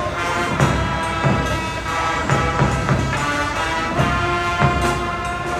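Live brass and wind band of saxophones, trumpets and trombones with a drum kit, playing Christmas music over a steady drum beat.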